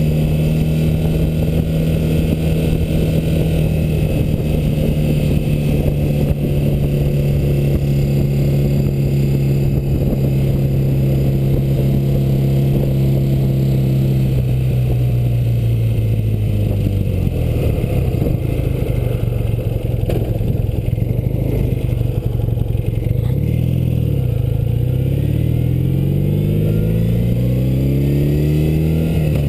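R75/57R motorcycle engine heard from the rider's seat, held at a steady cruising pitch for the first half, then easing off and falling in pitch. Over the last few seconds it climbs again, dipping briefly near the end as a gear changes, with wind and road noise throughout.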